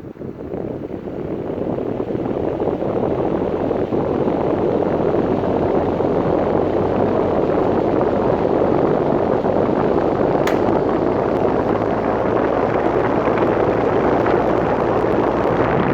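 KOENIC electric fan spinning up over the first few seconds, then running steadily with an even rush of air. A single sharp click about ten seconds in.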